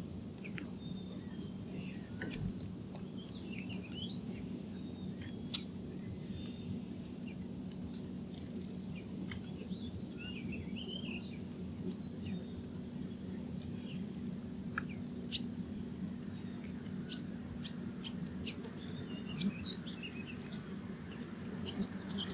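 A bird repeating a sharp, high call five times, each a quick falling note about half a second long, every three to six seconds. Softer chirps come in between, over a steady low hum.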